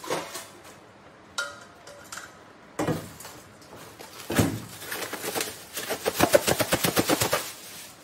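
Clear plastic bag crinkling and rustling as a bagful of surichwi leaves is tipped out into a stainless steel bowl. The crackling grows louder from a few seconds in and ends in a quick run of sharp crackles that stops suddenly.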